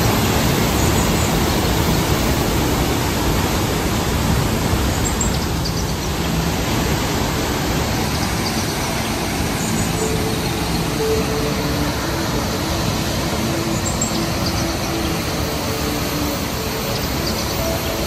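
Athabasca Falls, a large river waterfall, with the Athabasca River pouring over it in a loud, steady roar of rushing water.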